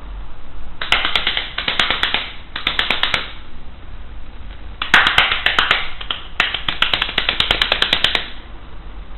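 Plastic hand-clapper toy with LED lights shaken so its plastic hands clack together rapidly, in two bursts of quick clacks, the second starting about five seconds in.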